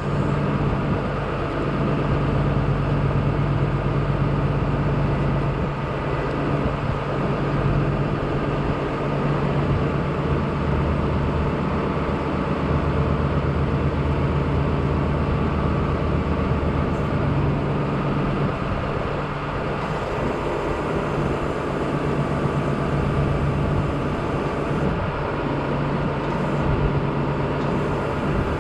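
A large engine idling steadily, an even low drone throughout.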